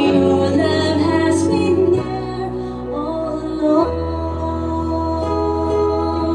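Slow, gentle music with long held chords over a bass note that changes about two seconds in and again near four seconds.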